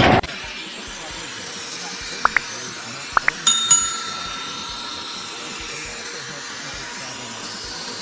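A steady hiss, with four short rising chirps in two quick pairs, then two quick metallic strikes that ring on for about a second, like a small bell.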